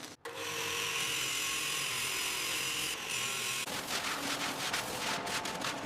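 Angle grinder grinding down fresh weld seams on steel body patch panels: a steady, high grinding noise that turns rougher and scratchier about two-thirds of the way through.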